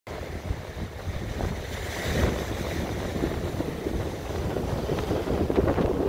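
Sea waves washing onto the beach, with wind buffeting the microphone in a low rumble. The wash swells about two seconds in.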